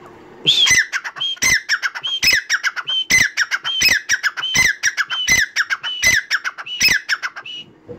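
Caged male grey francolin (dakhni teetar) calling for its mate. It gives a loud, shrill phrase of sharp falling notes, repeated about nine times in quick, even succession.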